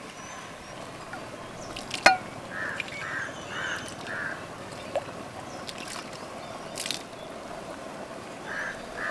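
Liquid poured from a small aluminium saucepan into a large aluminium pot of rice, trickling and splashing, with a sharp metal knock about two seconds in and a few lighter knocks.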